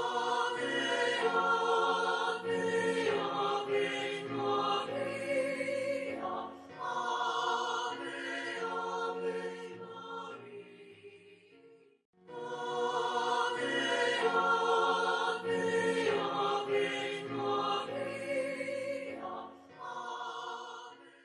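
Choral religious music: a choir sings a hymn, the same phrase of about ten seconds heard twice with a short break between, fading out near the end.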